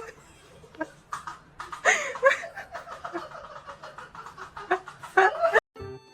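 A person laughing and snickering in short bursts. It cuts off sharply near the end, and music starts.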